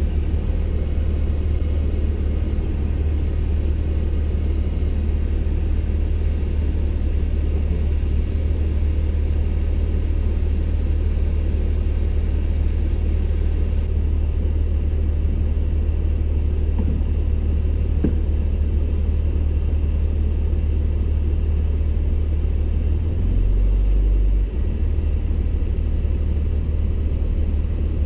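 Four-wheel-drive truck's engine running with a steady low rumble, swelling briefly about 23 seconds in.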